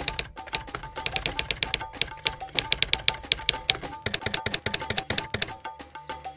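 Typewriter key clicks in fast, uneven runs, a sound effect laid over background music.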